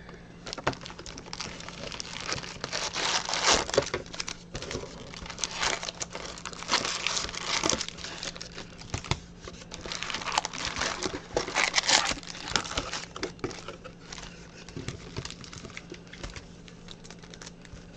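Wrapped Topps baseball card packs crinkling and rustling in irregular bursts as they are handled and pulled out of the box.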